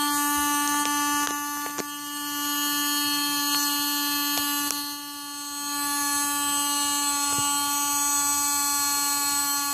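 Small 12-volt DC water pump motor running steadily with a constant whine and hum, with a few light clicks of handling.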